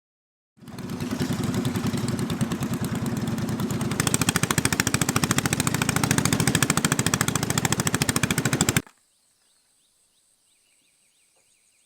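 A small engine running fast with a rapid, even putter. It grows louder about four seconds in, then cuts off abruptly, leaving faint chirping insects.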